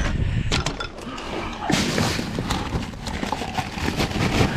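Rummaging through a dumpster: irregular knocks and thuds of items being picked up and shifted, with a longer scraping rustle about two seconds in.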